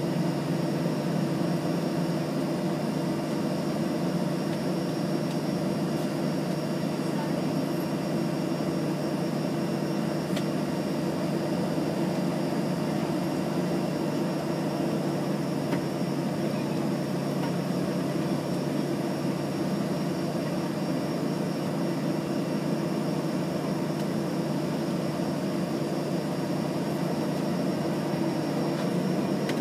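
Steady mechanical hum inside a parked airliner's cabin, the aircraft's running systems giving a low drone with a thin high whine above it.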